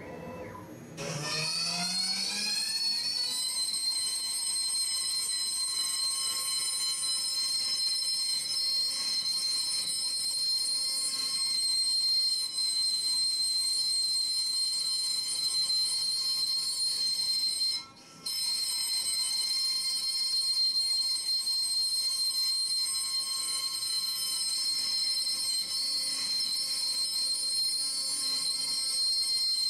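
CNC router spindle spinning up with a rising whine over the first three seconds, then running at speed with a steady high-pitched whine while its end mill routes a pocket into a wooden board. The sound drops out for a moment about eighteen seconds in.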